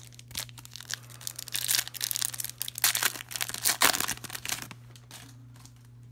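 Foil wrapper of an Upper Deck Series 1 hockey card pack being torn open and crinkled by hand, a few sharp crackles at first, then a dense run of tearing and crumpling in the middle that dies away.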